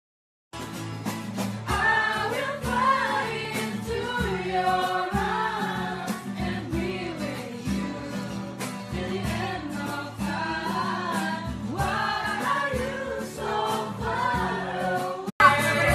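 Several voices singing a song together with instrumental accompaniment. It cuts off abruptly near the end and a different recording starts.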